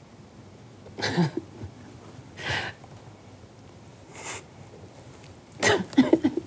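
A person coughing: single short coughs about a second in and again about two and a half seconds in, then a quick cluster of coughs near the end.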